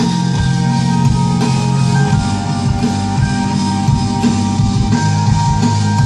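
Band music with drums, bass and guitar, played loud.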